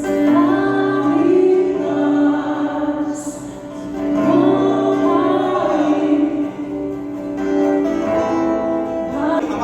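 Worship song in a church service: a voice singing long held notes over strummed acoustic guitar.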